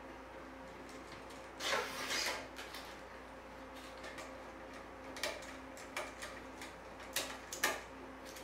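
Metal hot-swap drive tray with a 2.5-inch adapter being handled and screwed up on a wooden table: a short rattling clatter about two seconds in, then a few separate light clicks and taps from the tray and screwdriver.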